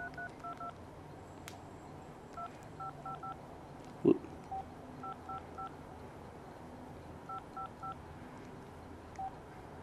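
Keypad tones of a Casio G'zOne Ravine flip phone as its keys are pressed for multi-tap text entry: short two-note beeps in quick groups of three or four, with one short thump about four seconds in.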